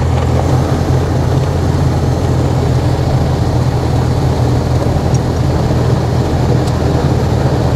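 Robin DR 400's Lycoming flat-four engine and propeller running steadily at low power while the plane taxis on grass, heard from inside the cockpit.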